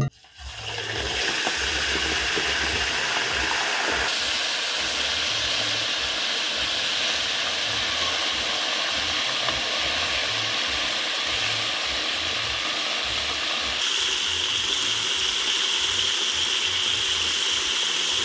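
Pieces of fish frying in hot coconut oil in a wok, a steady sizzle that shifts slightly in tone about four seconds in and again near the end.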